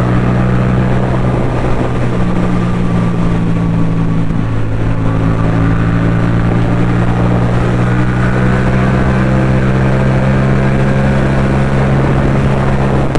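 Yamaha MT-07's parallel-twin engine running at steady revs as the motorcycle cruises, its note holding an even pitch.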